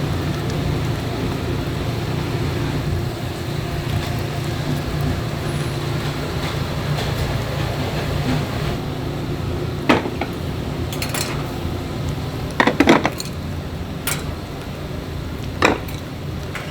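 Dishes and cutlery clinking: a handful of sharp clinks in the second half, over a steady low hum.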